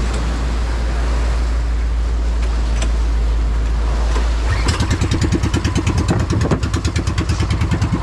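A fishing boat's engine starts a little past halfway and settles into a fast, even putter. Before it, a steady rumble of wind and water.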